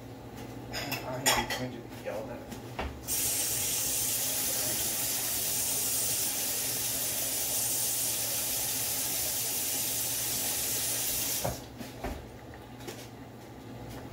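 Kitchenware clinking and clattering, then water running from a kitchen tap in a steady hiss for about eight seconds before it is shut off abruptly.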